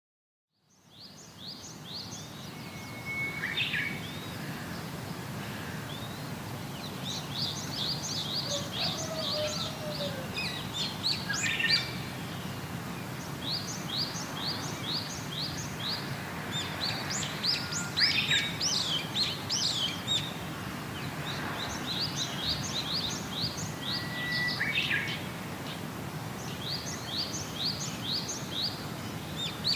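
Wild birds singing: runs of quick, repeated high chirps every few seconds, with a few lower whistled notes between, over a steady low outdoor background noise.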